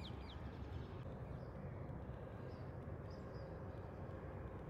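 Faint open-air ambience: a low steady rumble with small birds chirping now and then. A quick run of chirps ends just after the start.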